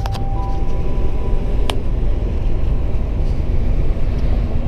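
DAF XF 95 truck driving down the road, heard from inside the cab: a steady low engine drone under road noise, with one sharp click about a second and a half in.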